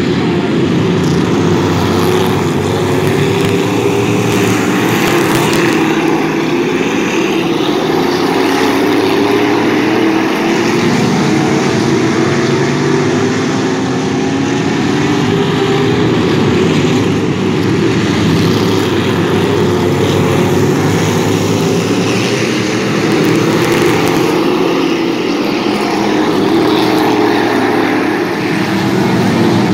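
A field of stock cars racing around a dirt oval, many engines running together in a loud, continuous drone whose pitch wavers up and down as the cars come round and pass.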